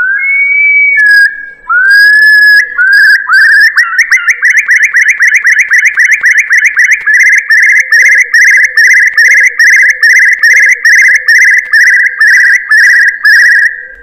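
Recorded curlew (gajahan) lure call, played loud. A few slurred, rising whistles and one longer held whistle open it. From about two and a half seconds in comes a long run of repeated whistled notes, about three a second, evenly pitched.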